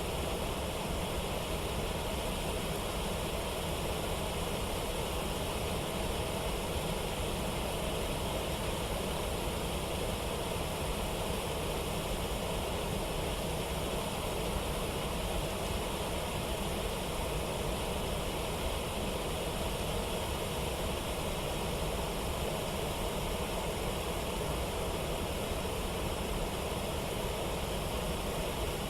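Steady, even rushing of water from a river or waterfall, unchanging throughout.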